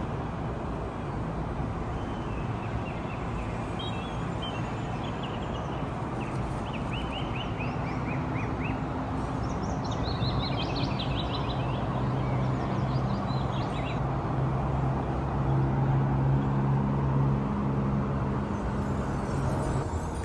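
Steady outdoor traffic noise with a small bird chirping in short, quick trills several times in the first half. A low drone grows louder in the second half.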